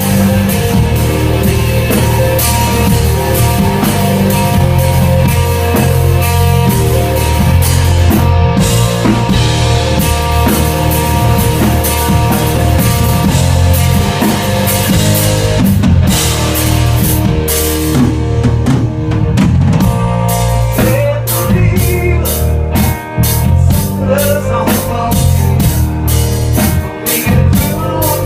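Rock band playing live without vocals: drum kit with steady hits over electric guitar and bass.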